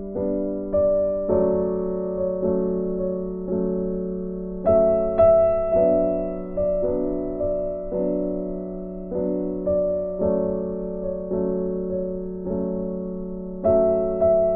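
Background piano music: a slow melody of struck notes that ring and fade, about two notes a second over sustained chords.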